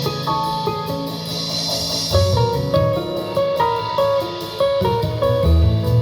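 Instrumental break of a jazz-pop song played through SVS Ultra Tower loudspeakers: plucked guitar notes over a walking bass line, with no vocals.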